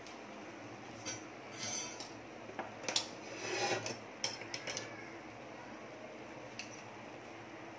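Scattered light clinks and scrapes of steel cookware and utensils being handled, busiest about three to four seconds in.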